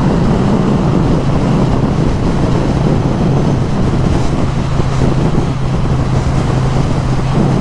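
Triumph Bonneville T100's 900 cc parallel-twin engine running at a steady speed on the move, under a loud rush of wind and road noise.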